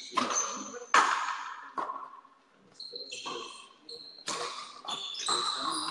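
Frontenis rally: the hard rubber ball cracks off rackets and the frontón wall about once a second, with short high-pitched squeaks in between.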